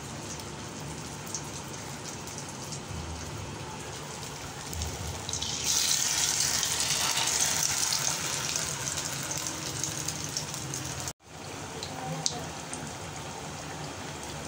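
Batter-dipped potato pinwheel bites frying in hot oil with a steady sizzle. The sizzle grows much louder and hissier from about five seconds in, then drops back to a steadier sizzle after a short break near the end.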